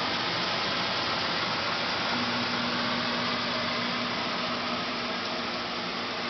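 Steady sizzling hiss of scallops and vegetables frying in pans on an electric stove. A low steady hum joins in about two seconds in.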